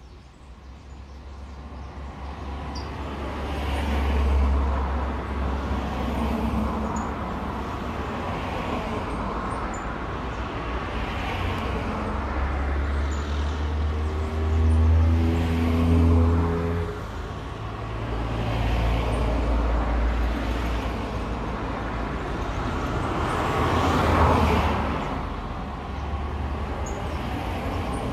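Cars passing along a road one after another, the tyre and engine noise swelling as each one goes by and fading again. About halfway through, one passing vehicle's engine drone stands out above the road noise.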